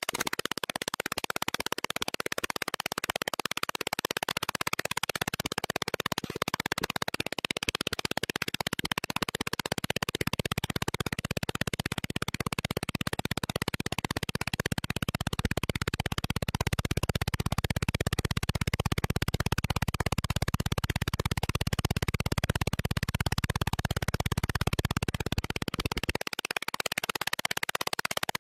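Background synthesizer music, running steadily, with a heavier low part through most of the middle.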